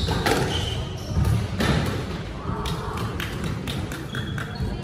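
Squash ball being struck and rebounding during a rally: a series of sharp, irregular knocks from racket hits and the ball off the walls and floor, with a murmur of spectators' voices.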